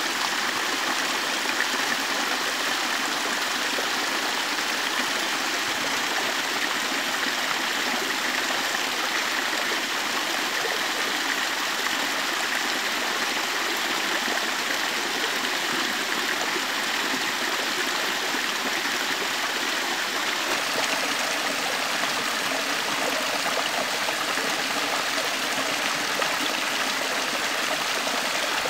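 Small stream spilling over a low drop of stones: a steady rush of running water.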